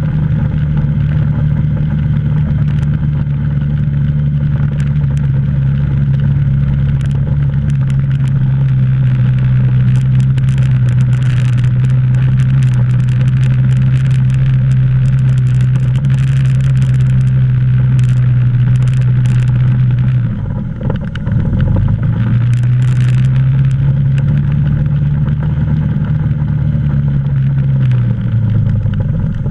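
ATV engine running steadily under way at an even throttle. About two-thirds of the way through the throttle is briefly let off and the engine note drops, then picks back up, and it drops again near the end as the machine slows.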